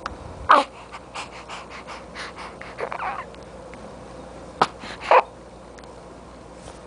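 Infant's short breathy grunts and little vocal sounds, several in a row, loudest about half a second in and again about five seconds in, as he strains to hold his head up lying on his tummy.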